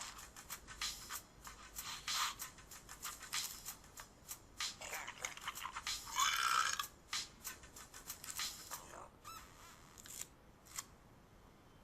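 Wet, irregular clicking and smacking of chewing on banana, with a brief squeaky pitched sound about six seconds in.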